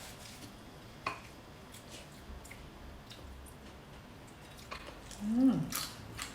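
Quiet eating sounds: scattered small clicks and smacks of chewing and cutlery, with a short hummed voice sound, falling in pitch, about five seconds in.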